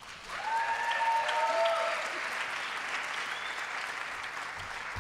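Audience applauding, starting a moment in and easing off slightly toward the end.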